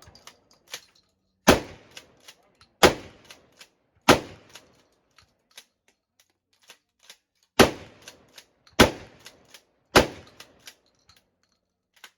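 Smith & Wesson 916A 12-gauge pump-action shotgun firing six shots, in two quick strings of three about a second and a quarter apart, with fainter clicks between the shots.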